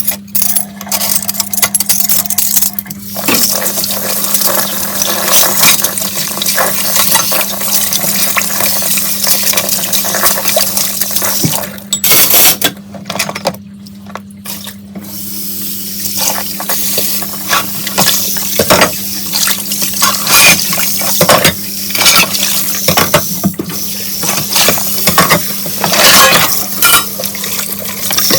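Tap water running into a kitchen sink while dishes are washed, with frequent clinks of dishes and cutlery. The water stops for a few seconds about halfway. A steady low hum sits underneath.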